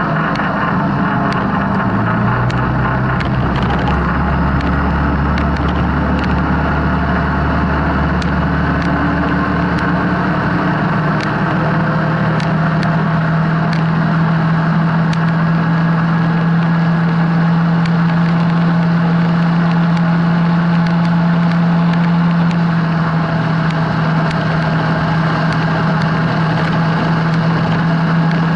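Yamaha Grizzly 700 ATV's single-cylinder engine running while cruising along a road. The engine note shifts over the first few seconds, then settles to one steady pitch about ten seconds in, with scattered light ticks.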